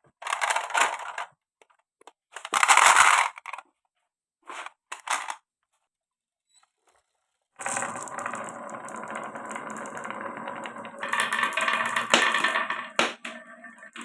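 Marbles running through a wooden marble run: a few separate bursts of clattering over the first five seconds, a short silence, then one long stretch of rolling and clicking on wooden track that grows louder near the end.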